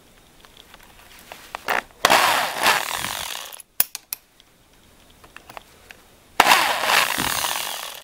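Electric hand drill with a center drill bit running in two short bursts, about two and six seconds in, countersinking the hole in a small steel strip held in a vise. A few light clicks fall between the bursts.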